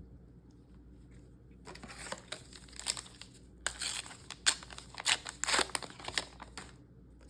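Foil booster-pack wrapper being torn open and crinkled in the hands: a stretch of sharp crackling that starts a little under two seconds in and lasts about five seconds.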